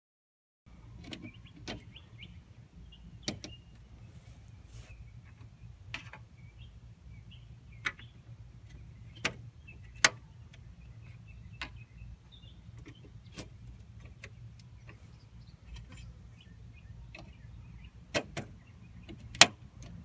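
Scattered sharp clicks and knocks of a plastic car grille being handled and pressed into place on the front of a Honda Civic. About fifteen separate hits are spread irregularly over a steady low hum, with the loudest two around the middle and near the end.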